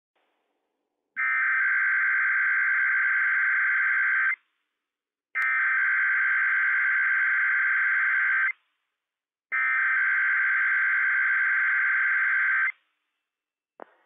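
Emergency Alert System SAME header tones from a NOAA Weather Radio broadcast: three identical bursts of buzzing digital data, each about three seconds long with about a second's gap between them. They encode the alert that opens a Required Weekly Test.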